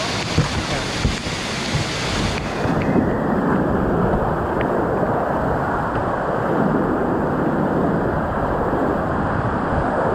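Steady rushing of whitewater rapids on a river in high flood. About two and a half seconds in the sound turns duller, losing its hiss, as the view switches to a kayak paddling down the rapids.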